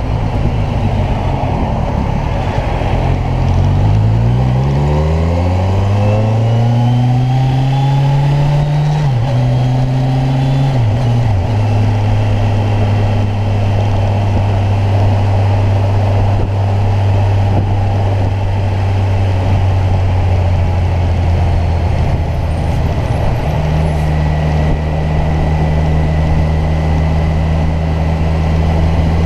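Kawasaki Ninja 1000's inline-four engine accelerating with rising revs from a few seconds in, the revs dropping sharply at two gear changes about nine and eleven seconds in, then running at steady revs while cruising.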